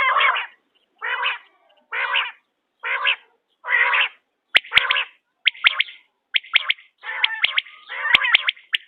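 Quail (bater) calls repeating about once a second, each a short, rasping call. About halfway through, the calls turn into quicker, crackling notes with a few sharp clicks.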